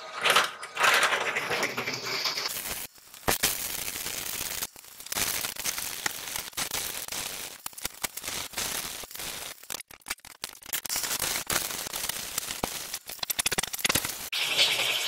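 Drill press bit cutting through a metal part, a dense crackling and grinding as metal chips curl off the cutting edge. The sound drops out briefly a few times.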